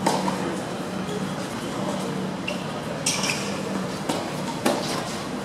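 Tennis racket striking the ball during a rally: a sharp pop right at the start and another about four and a half seconds in, with fainter ball and footstep sounds between, over steady outdoor background noise.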